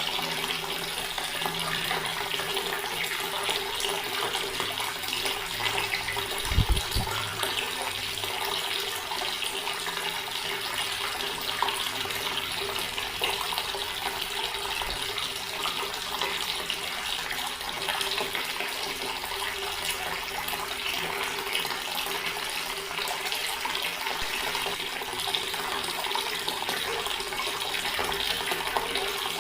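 Water flowing from a tap into a stone basin: a steady splashing stream, with a faint steady low tone underneath. A brief low thump sounds about six and a half seconds in.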